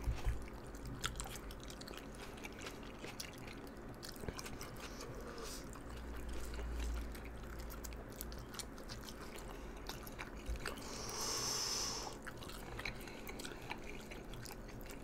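Two people chewing and slurping spicy instant noodles, with small wet mouth clicks throughout. A short hiss comes about eleven seconds in.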